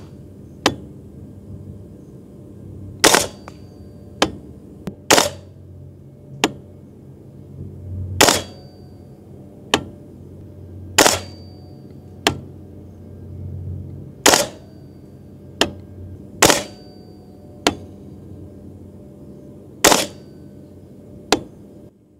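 VFC Colt M16A2 gas blowback airsoft rifle firing single shots, each a sharp crack with the kick of the bolt cycling. Seven shots come two to three seconds apart, with fainter clicks in between.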